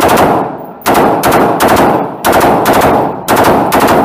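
Colt M16 rifle (5.56×45mm) firing four quick bursts of rapid shots, each burst echoing in an indoor range.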